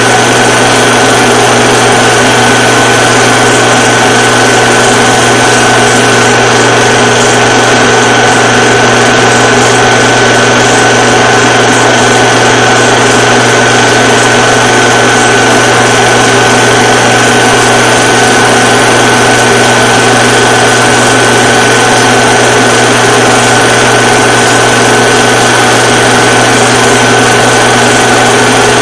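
Steady, loud motor whir with a constant high-pitched tone, unchanging throughout; nothing from the wrestling itself is heard.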